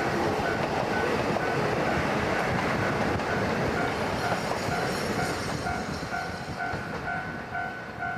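Freight train wagons rolling past over station pointwork, a steady rumble and rattle of wheels on rails. A short bell-like tone repeats about twice a second throughout, with a lower tone added over the second half.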